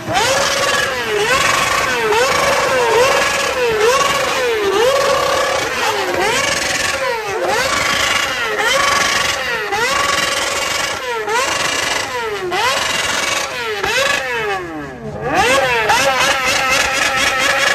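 Many sport-bike engines revved together, their throttles blipped over and over so that the engine notes rise and fall about once a second and overlap. Near the end one long rev falls away, then climbs sharply into a fast, stuttering run of pulses.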